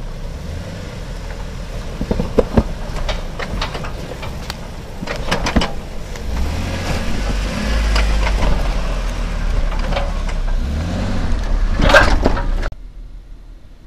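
Jeep engine running off-road and pulling harder twice, with scattered sharp knocks and clunks; the sound cuts off suddenly near the end.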